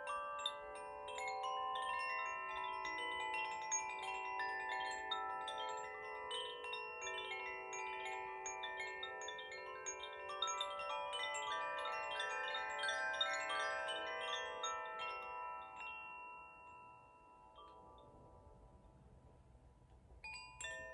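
French tuned wind chimes played in a continuous shimmer of struck notes that ring on over one another. The chiming dies away from about 16 seconds in to a faint lingering ring, then is struck again just before the end.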